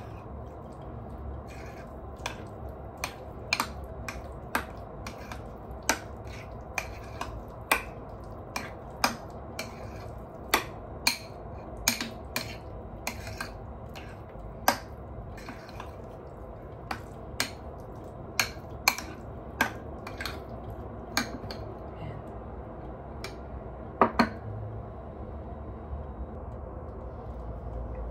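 Utensil clinking against a mixing bowl while lumpia filling is stirred after seasoning: sharp clicks about once a second, thinning out near the end with a loud double click, over a steady low hum.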